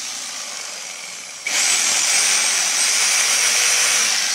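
750-watt electric jigsaw running as a test load on a mains hook-up consumer unit, with a high motor whine. It runs slightly slower at first, then about a second and a half in it jumps back to full speed.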